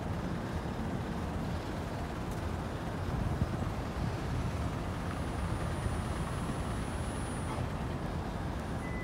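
Steady low rumble of city road traffic. A thin, steady high tone begins right at the end.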